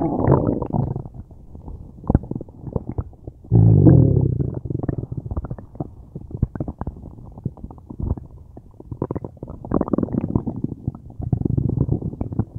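A person's stomach gurgling and rumbling loudly, with many small pops and bubbling clicks. The deepest, loudest rumble comes about three and a half seconds in, and more bursts of gurgling follow near the end.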